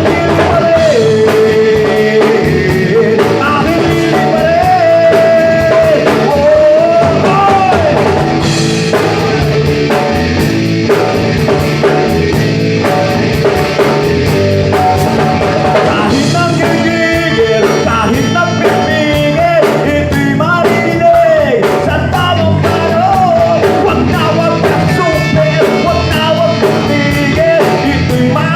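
Live rock band playing a song: a lead singer's melody over electric guitar, bass guitar and a drum kit, at a steady full loudness.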